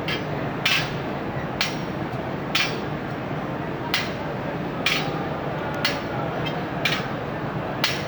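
Steel bars being struck, sharp clanks at a steady pace of about one a second, over a constant background noise.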